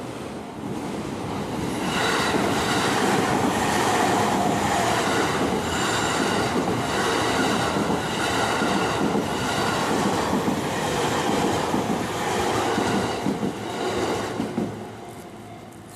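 A JR Takasaki Line electric train passing over a level crossing. The wheel and rail noise builds over the first couple of seconds, holds loud for about twelve seconds, then fades away near the end.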